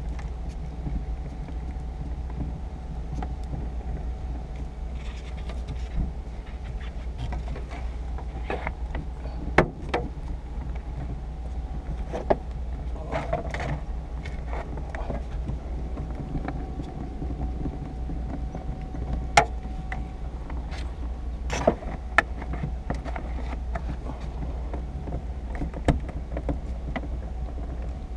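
Windshield cut-out work: scattered sharp clicks and knocks, about half a dozen, over a steady low rumble.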